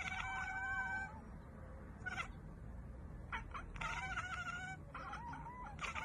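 A black cat chattering at prey it has spotted but cannot reach: a run of chirping, meow-like calls, with a long wavering call in the first second and another about four seconds in, and shorter chirps between them.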